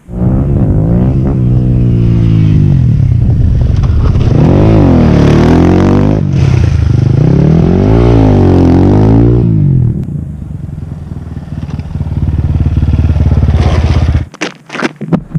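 GR7 250 dirt bike engine revving hard, its pitch climbing and dropping several times as the rider accelerates through the gears, then settling to a lower, steadier note about ten seconds in. The sound cuts off sharply near the end.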